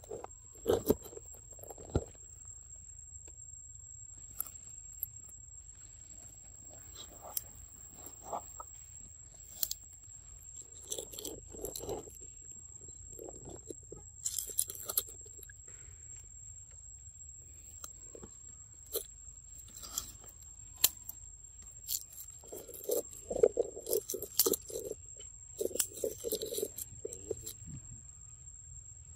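Irregular small clicks, smacks and rustles close to the microphone from a macaque mother and her nursing infant, coming in quick runs of soft smacking sounds near the end. A steady high-pitched whine sits underneath.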